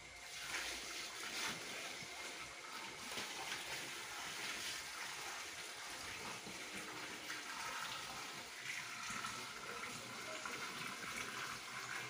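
Water poured from a large plastic tub into the drum of a top-loading washing machine: a steady splashing stream that starts about half a second in.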